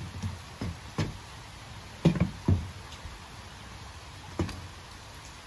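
Handling noise from a large blue catfish being lifted and held on a dock: about five dull knocks and thumps, a second or so apart, over a faint steady background hiss.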